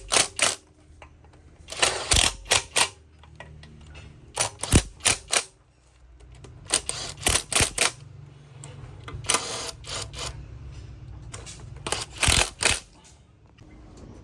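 Sharp knocks in quick groups of three or four, the groups a second or two apart, with a low steady hum beneath; one noisier, rasping half-second burst about two-thirds of the way through.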